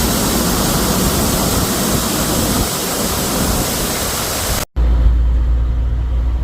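Loud, steady rushing noise for about four and a half seconds. Then, after a brief dropout, the low, steady drone of a diesel semi truck's engine heard from inside the cab.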